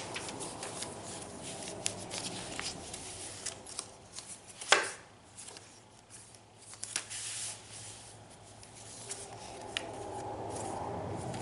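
Paper pages of a handmade junk journal being turned and handled: rustling and light crinkling with small taps and clicks, and one louder tap about five seconds in.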